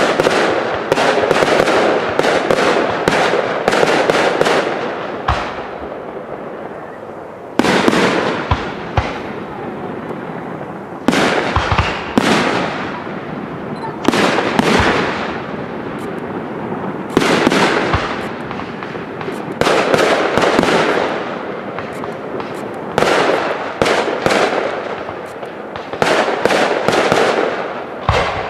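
Aerial fireworks display: shell bursts bang one after another, each followed by a long echoing tail. The bangs come thick and fast for the first few seconds, then every second or two.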